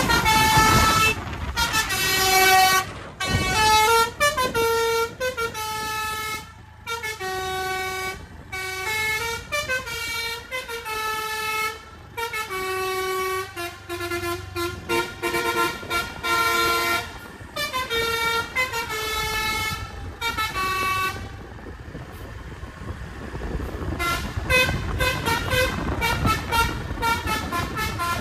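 A telolet basuri V3 multi-tone bus air horn plays a tune of quick stepped notes. It stops about 21 seconds in, leaving only vehicle noise. About three seconds later rapid, short toots start up again.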